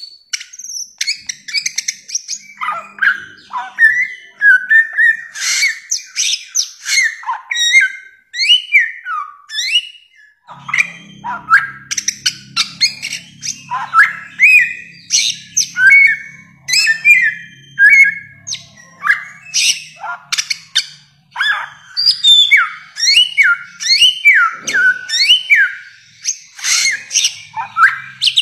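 Bare-throated whistler (samyong) singing a long, fast run of loud, varied whistled notes, several a second: short rising and falling slurs and sharp chattering notes, one phrase after another with hardly a pause.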